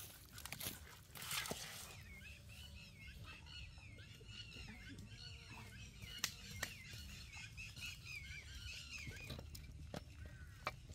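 Small birds chirping and twittering in rapid, overlapping short notes, starting about two seconds in and carrying on until near the end. Before them there is some rubbing and handling noise, and a few sharp taps sound through the birdsong.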